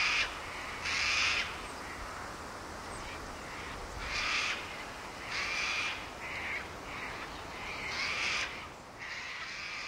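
Sulphur-crested cockatoos screeching: about seven harsh calls, each roughly half a second long, spaced a second or so apart.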